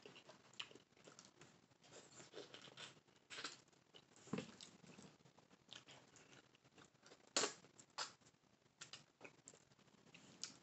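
Faint, scattered small clicks and smacks of eating by hand: chewing, and fingers peeling the skin off a kiwi. The sharpest click comes about two-thirds of the way in.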